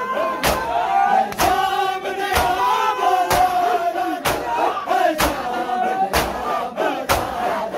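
A large crowd of men doing matam, striking their chests with open hands in unison about once a second, eight sharp beats in all. Under the beats, men's voices chant a nauha lament.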